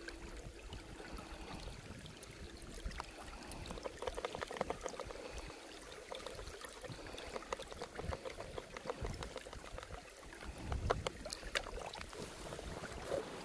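Faint shallow stream water splashing and trickling around a metal hand suction tube held in the water, with scattered small clicks throughout.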